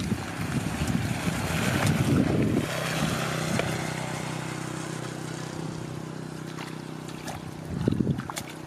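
Wind buffeting the microphone in gusts, strongest in the first three seconds and again near the end, with a steady low hum underneath from about three seconds in.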